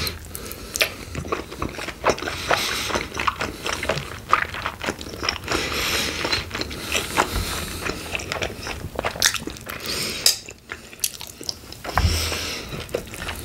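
Close-miked biting and chewing of chicken wings: a quick, irregular run of mouth smacks and clicks.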